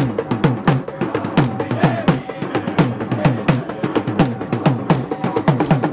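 Crowd of mourners doing matam, striking their chests with open hands in unison: a steady beat of sharp slaps with dull thuds, about two to three a second, with voices in the crowd.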